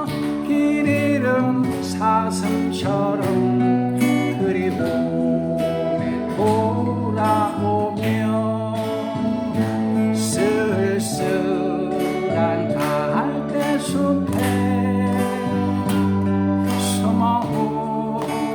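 Music: a slow ballad with plucked guitar and a wavering, vibrato-laden melody line over steady bass notes.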